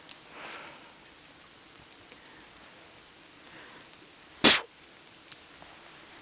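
Heavy rain falling on the bush, a faint steady hiss. About four and a half seconds in there is a single loud, sharp knock.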